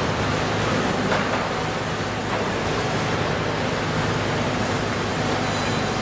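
Diesel engine of a concrete mixer truck running steadily, a low hum under a wide, even hiss.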